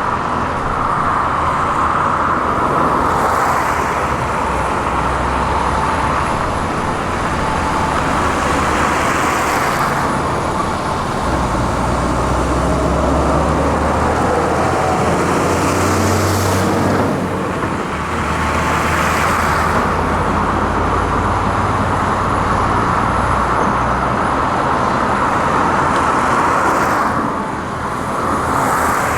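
Heavy diesel excavators working: a steady engine note with the noise swelling and easing every six or seven seconds.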